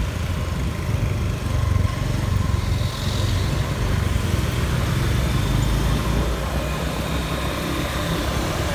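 Steady low road rumble of riding along a city street: a vehicle's engine and travel noise with a haze of wind and passing traffic.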